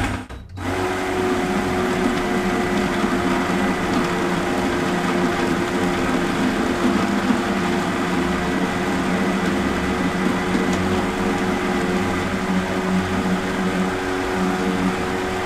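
Countertop electric blender running at a steady speed, blending a thick red pepper relish (lyutenitsa) with the jar's lid held down by hand. The motor starts about half a second in and keeps a steady whirring hum.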